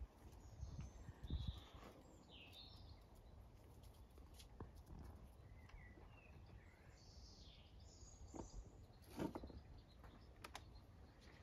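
Near silence with faint, scattered bird chirps and a couple of soft low thumps, one about a second in and one late.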